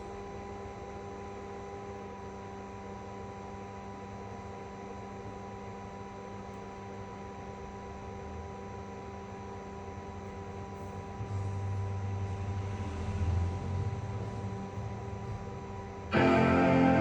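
Steady electrical hum made of several fixed tones over a faint hiss. A low rumble joins about eleven seconds in. Music starts abruptly near the end.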